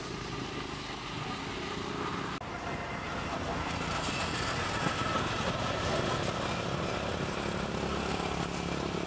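Steady engine noise of motor traffic in the background, with a continuous low rumble and hiss. The sound breaks off sharply for a moment about two and a half seconds in.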